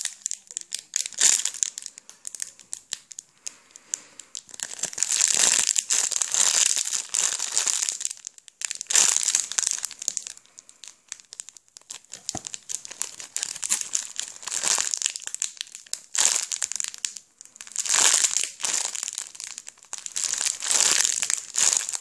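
Clear plastic packaging crinkling in repeated bursts of a second or two as a foam steamed-bun squishy is squeezed inside it, with quieter gaps between squeezes.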